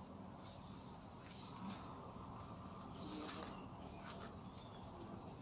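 Insects trilling steadily in one continuous high-pitched band, with a few faint clicks over low background noise.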